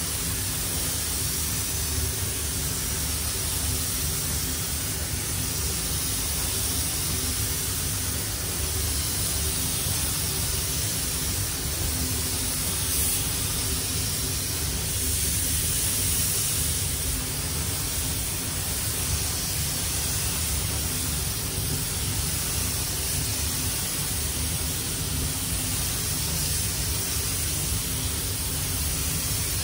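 Gravity-feed spray gun hissing steadily as it sprays primer onto a car's rear door and quarter panel. Under it runs the even rush and low hum of the spray booth's air flow.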